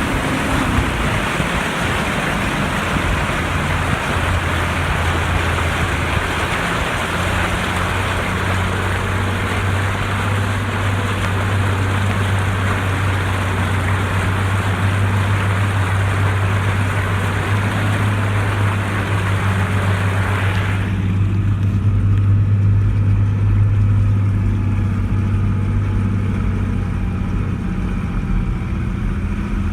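A vehicle's engine running steadily as it drives through flooded creek water, with a loud rush of water against the vehicle. About two-thirds of the way through the water noise stops suddenly and the engine drone carries on alone.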